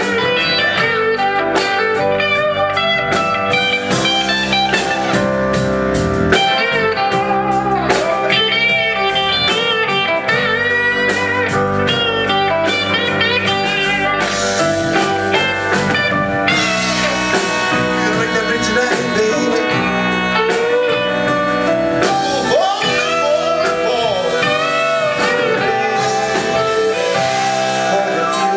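Live blues band playing a slow song, with electric guitar, bass and drums, and trumpet and saxophone playing in the latter part.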